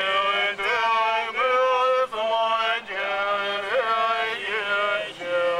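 A man singing a slow melody with long held notes that waver and bend in pitch, in short phrases broken by brief pauses.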